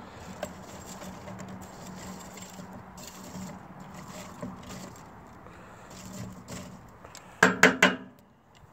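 Metal tongs pushing and scraping charcoal briquettes around a grill grate, with light scattered clicks, then a quick burst of three or four sharp clacks near the end. A steady low hum runs underneath.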